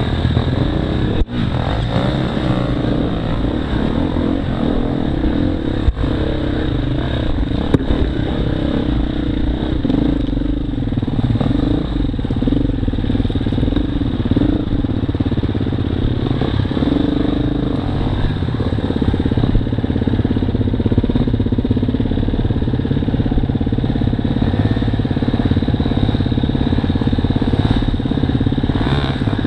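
Off-road enduro motorcycle running under way, its single-cylinder four-stroke note rising and falling as the throttle is worked. A few sharp knocks come in the first eight seconds or so.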